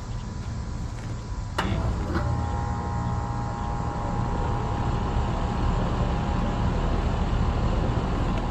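1996 Lennox Elite central air-conditioner condensing unit starting up. A sharp click comes about a second and a half in, then a second, smaller one, and the scroll compressor and fan come up to a steady hum with a steady whine. Under it all is a steady low hum that was there before the start.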